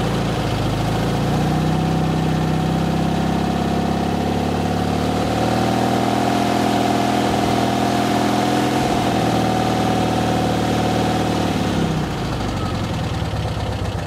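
Porsche 356C's air-cooled flat-four engine running on its freshly rebuilt twin Zenith carburetors, brought up to a raised speed by hand at the throttle linkage over the first couple of seconds, held there steadily, then let back down about twelve seconds in. It runs smooth and even, the engine now starting and running well after the carburetor rebuild.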